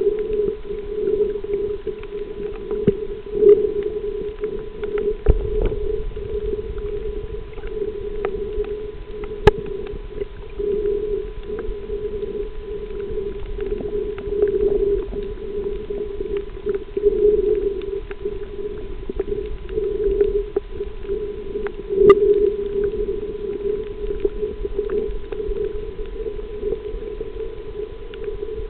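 A snorkeler breathing and blowing through the snorkel, heard muffled underwater through the camera, swelling and fading with each breath. Scattered sharp clicks, the loudest about a third of the way in and again about three-quarters of the way in.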